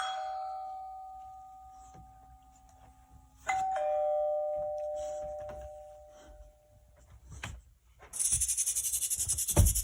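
Two-tone ding-dong doorbell chime played through a speaker, the last of one chime dying away at first and a second chime sounding about three and a half seconds in and ringing out. Near the end a loud, fast pulsing buzz starts, with a low thump shortly before the end.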